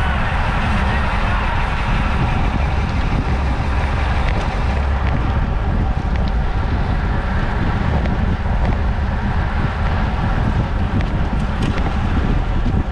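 Wind rushing over the microphone of a road bicycle riding at racing speed, about 25–30 mph, a steady, heavy rush with a strong low rumble.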